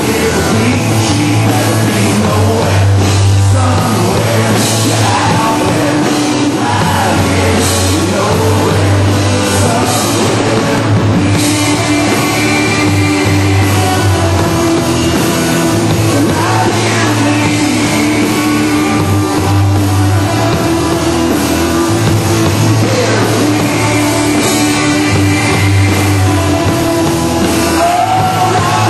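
Country-rock song playing loud and steady: a male lead vocal over a drum kit and electric bass.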